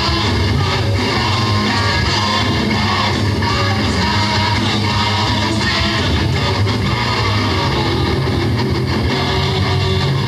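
Metal band playing live: electric guitars over bass and drums, steady and loud.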